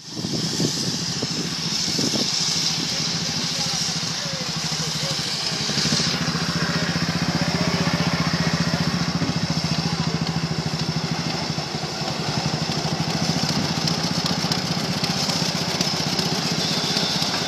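Steam shovel machinery running, with a rapid, even beat and a steady high hiss of steam over it.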